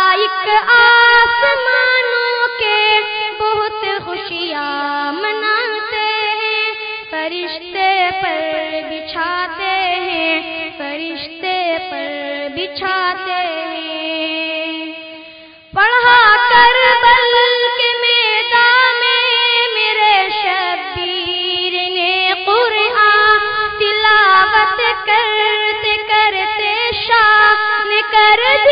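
A high solo voice singing an Urdu nazm (nasheed) in long, drawn-out, ornamented notes. The singing dies away about 16 seconds in and starts again at once on a new line.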